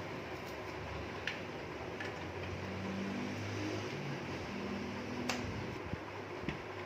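A few faint clicks and taps of computer parts being handled, over a steady background hiss.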